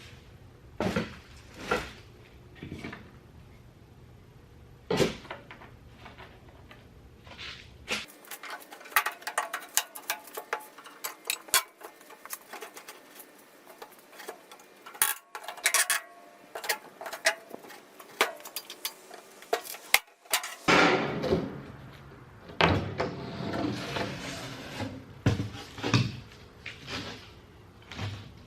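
Knocks, clicks and clatter of tools and parts being handled while the old table is taken off a DeWalt radial arm saw, in several cut-together stretches. The densest run of sharp clicks falls in the middle, and scattered heavier knocks come near the start and the end.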